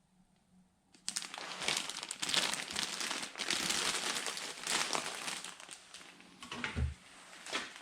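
Packaging crinkling and rustling as it is handled and opened, starting suddenly about a second in and going on irregularly, with a dull knock near the end.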